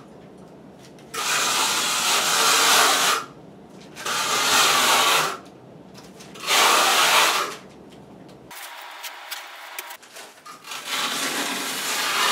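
Notched trowel scraping across wet thinset mortar on tile backer board overhead, combing in trowel lines: four long rasping strokes, each one to two seconds, with short pauses between them.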